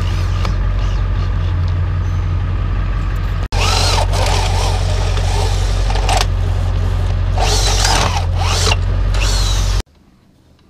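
Handheld power drill running in bursts while driving bolts into a camper tie-down bracket, its whine rising and falling with the trigger, over a steady low hum. The sound cuts off sharply near the end.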